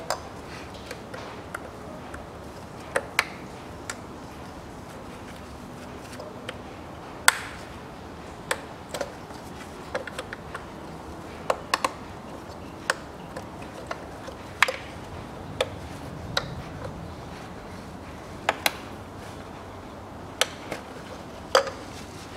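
Irregular sharp plastic clicks and snaps, some twenty spread out with pauses, from the latches of a Hyundai ix35 2.0 petrol engine's ignition coil connectors being lifted and pressed to unplug them, with hands handling the wiring.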